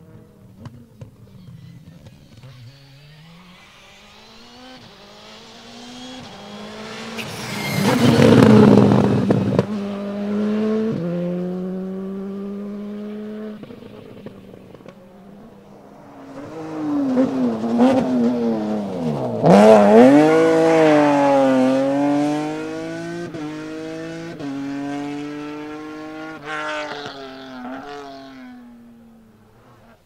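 Rally car engines driven hard on a gravel stage, the revs climbing and dropping in steps as the driver shifts gears and lifts off. A car passes close about eight seconds in with a rush of noise, and another runs loud around twenty seconds, the revs dipping under braking and then climbing again.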